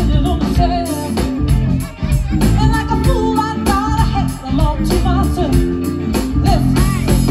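Live band playing, with a woman singing into a microphone over guitar and band accompaniment.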